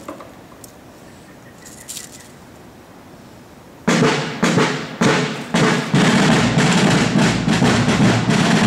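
A fife and drum corps' drums start up about four seconds in: four separate strokes about half a second apart, then continuous drumming.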